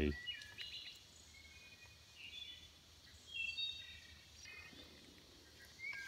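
Faint bird chirps: a few short, high notes, some stepping down in pitch, scattered over a quiet, steady outdoor background.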